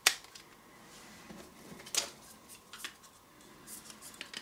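Hard plastic clicks and taps from handling a small ABS plastic audio player and its battery compartment. A sharp click comes at the start and another about two seconds in, with lighter ticks between and near the end.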